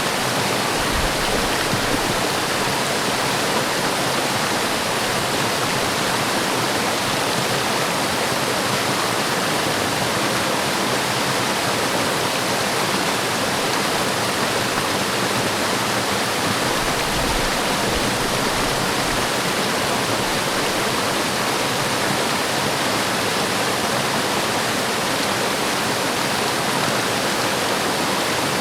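Waterfall pouring steadily into a forest stream, an even rushing of water with a few brief low rumbles.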